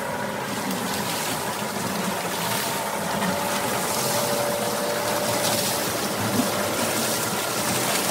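Water pouring and splashing steadily onto the buckets of a homemade water wheel as it turns its chain-and-sprocket drive, with one brief knock a little past six seconds in.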